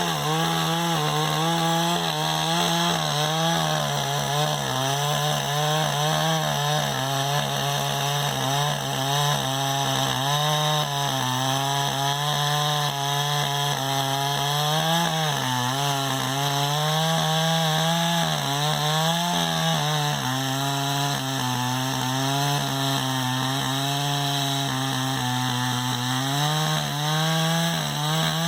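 Chainsaw running at high revs while cutting wood, its engine pitch dipping and recovering under load.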